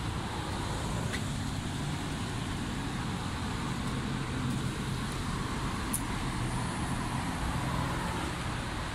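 Steady street traffic noise: a continuous low rumble of passing road vehicles.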